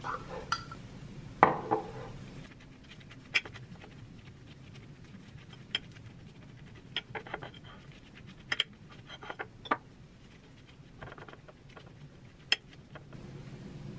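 Metal utensil clinking and scraping against a ceramic plate while pesto is spread over a tortilla: scattered light clicks and swishes, with one louder clink about a second and a half in.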